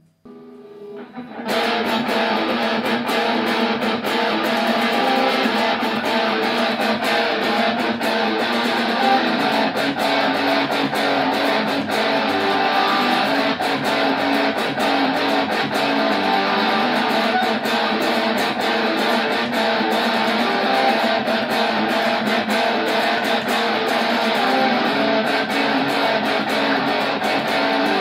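Amplified electric guitar played with a Dunlop pick: a song part with strummed chords, starting quietly and coming in loud about a second and a half in, then running on steadily.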